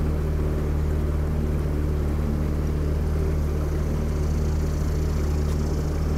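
A small boat's outboard motor running steadily, a low even drone, heard from on board. A faint hiss joins about four seconds in.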